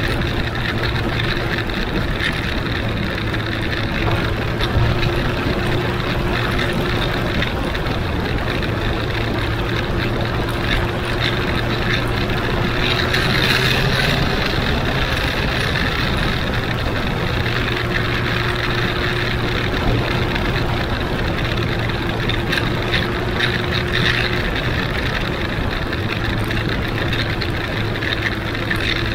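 Benelli Huanglong 600 motorcycle's inline-four engine running at steady revs while riding, over a steady rush of wind and road noise.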